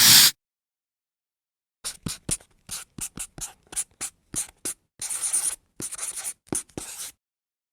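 Handwriting on paper: a run of short scratchy strokes, a few a second, with one longer stroke in the middle. A brief loud burst of noise comes just before, right at the start.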